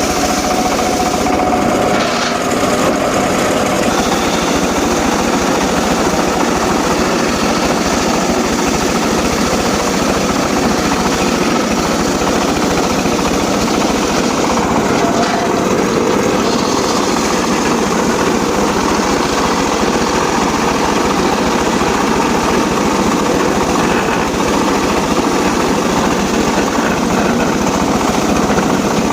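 Engine-driven saw running steadily, cutting teak wood.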